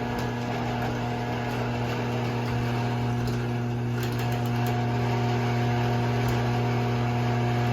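Craftsman garage door opener's motor running steadily as it drives the door, a constant electric hum.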